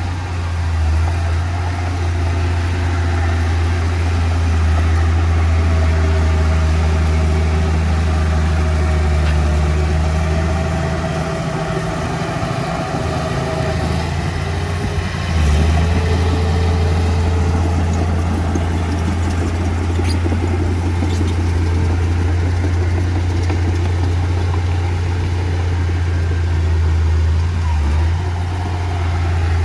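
Heavy diesel engine of earthmoving machinery running steadily. About eleven seconds in it eases off and turns rougher, then picks up again with a sudden rise a few seconds later.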